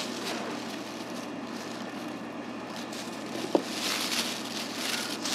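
Thin plastic food bag rustling and crinkling as gloved hands fold it around a fried bun, with a sharp click about three and a half seconds in, over a steady background hum.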